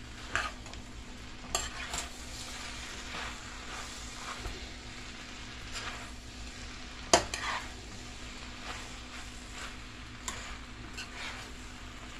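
Noodles, shrimp and sausage being stirred and tossed in a frying pan, with a utensil scraping and knocking against the pan at irregular moments. The sharpest knock comes about seven seconds in, over a steady faint sizzle.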